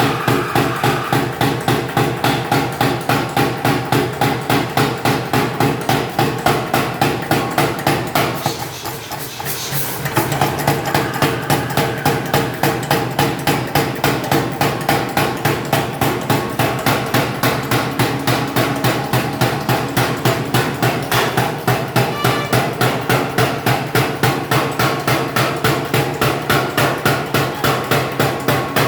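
Pneumatic forging hammer pounding in a fast, even rhythm of about two to three blows a second. It stops briefly about nine seconds in, then resumes.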